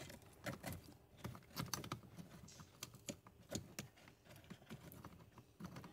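Plastic wiring-harness connectors and cables being handled and fitted together for a splitter: faint, irregular small clicks and rattles.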